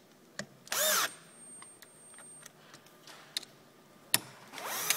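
Cordless drill-driver driving screws into a roller ski's binding plate, in two short bursts, about a second in and again near the end, its motor pitch winding up and back down in each. A few sharp clicks come in between, the loudest just after four seconds in.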